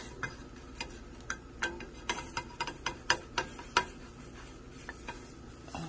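A spatula tapping and clicking against a nonstick frying pan, a string of light irregular clicks about two a second.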